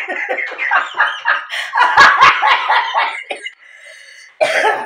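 A woman laughing hard in loud, rapid bursts, breaking off about three and a half seconds in, with one more short burst near the end.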